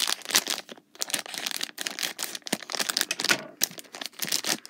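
Shiny plastic blind bag crinkling and crackling in the hands as it is torn open, a dense run of crackles with a couple of short pauses.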